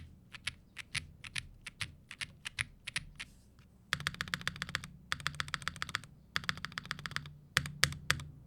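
Typing on a Womier RD75 aluminium 75% mechanical keyboard fitted with Vertex V1 switches and GMK Norse keycaps, built without its IXP foam and PET switch film. Separate keystrokes for the first few seconds, then quick runs of fast typing broken by short pauses.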